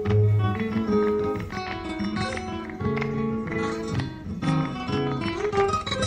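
Background music: Latin-style acoustic guitar, plucked and strummed in a flamenco manner.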